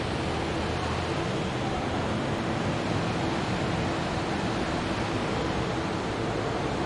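Steady rushing noise, with the faint low drone of a distant ALCO diesel locomotive's engine as it crawls onto a steel trestle bridge. The drone grows slightly stronger near the end.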